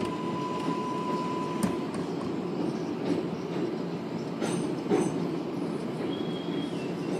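R188 subway train heard from inside the car running through a tunnel: a steady rumble of wheels on rail with scattered rail-joint clicks. A steady whine stops about two seconds in, and brief high-pitched wheel squeals come around the middle and again near the end.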